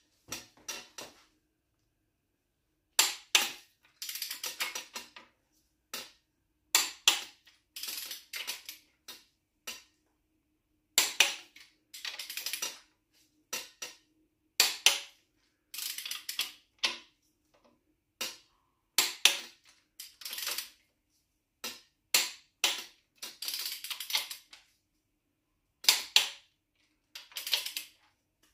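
Ratchet of a torque wrench tightening an engine's crankshaft main bearing cap bolts to 60 newton metres. It comes in about seven bursts, roughly every four seconds, each a sharp click followed by a run of fast ratcheting clicks.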